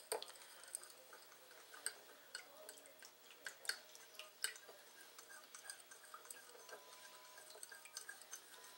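Faint stirring of a thin sauce in a ceramic bowl: a spoon clicking and scraping lightly against the bowl in scattered small ticks, with soft wet sounds of the liquid.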